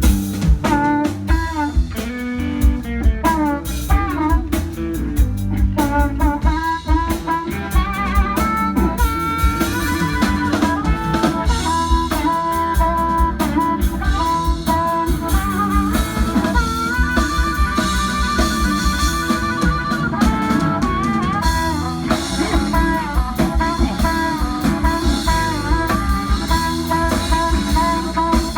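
A live electric blues band playing an instrumental break: drums and bass keep a steady beat under a lead line of bent, held notes.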